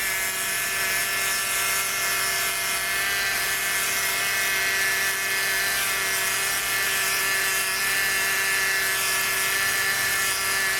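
Peugeot 208's 1.2 three-cylinder engine held at a steady raised speed, running with a loud whine. The mechanic traces the noise, very strong here, to the timing-belt cover, around the tensioner and guide bearing of the oil-bathed timing belt.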